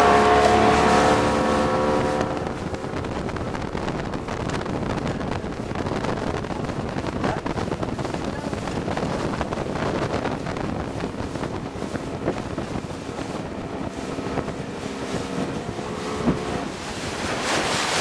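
Outboard motor of a speedboat running at speed while towing, with wake water rushing and wind buffeting the microphone. The engine's steady drone comes through clearest in the first couple of seconds and again near the end, under the water and wind noise in between.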